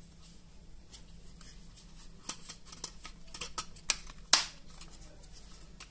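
Small plastic clicks and knocks as a circuit board is pressed into the plastic housing of an Opel Zafira clock and temperature display, with one louder snap a little over four seconds in as it seats in its guide groove.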